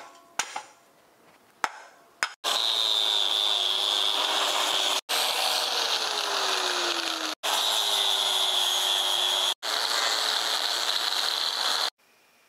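A few separate hammer blows on a steel axle. Then an angle grinder runs steadily against the axle tube, most likely cutting off the leaf spring perches. Its pitch sinks for a couple of seconds as it bears into the metal, and its steady high whine breaks off briefly three times.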